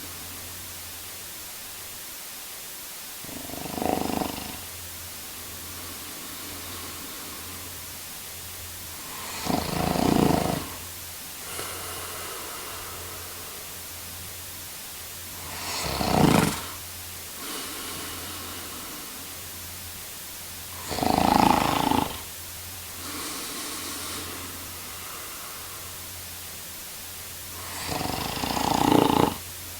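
A man snoring: five loud snores about six seconds apart, each lasting about a second, with softer breaths between them over a steady background hiss.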